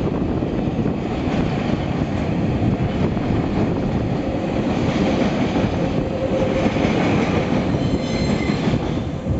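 Container wagons of a freight train rolling past, a steady heavy rumble of steel wheels on rail, with a brief high wheel squeal near the end.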